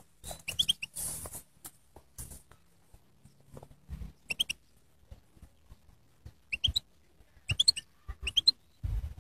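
European goldfinch singing: short bursts of quick, high twittering notes, separated by pauses.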